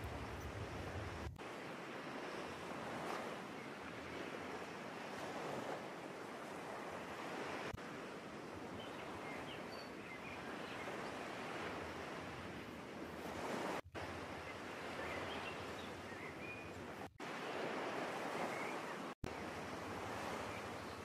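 Ocean surf washing on a beach: a steady rushing noise that swells and eases, broken by a few brief dropouts.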